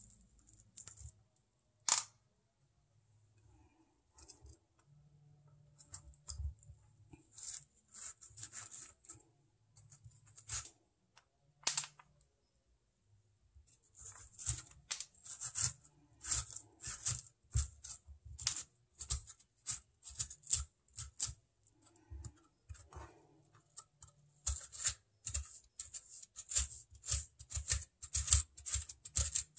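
Seeds and stringy flesh being scraped out of a halved spaghetti squash: a few scattered sharp clicks at first, then short, wet scraping strokes at about two a second through the second half.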